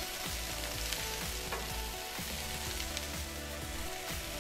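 Vegetables and steak strips sizzling steadily in oil on a hot Blackstone flat-top griddle, with a brief clink of a metal spatula right at the start.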